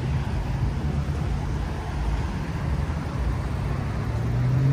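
Road traffic at a city intersection: a steady low car-engine hum over traffic noise, rising in pitch and getting a little louder near the end as a vehicle pulls away.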